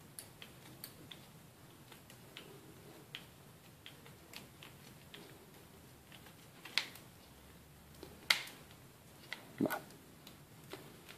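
Small scissors snipping off excess plastic mesh: a string of light, scattered snips and clicks, with three louder snips in the second half, a second or so apart.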